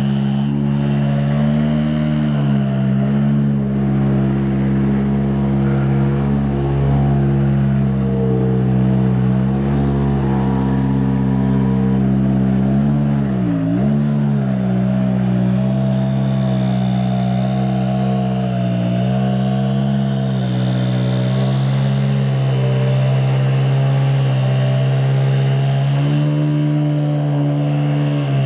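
Ferrari P80/C's twin-turbo V8 idling steadily after a cold start, with a brief dip in engine speed and recovery about halfway through.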